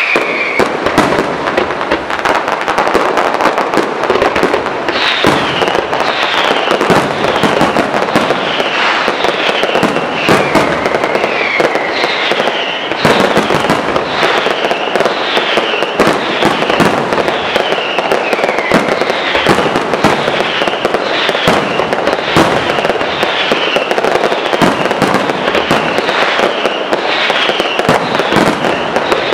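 Aerial fireworks display at full intensity: a dense, continuous run of shell bursts and crackling. From about five seconds in, falling whistles repeat roughly once a second.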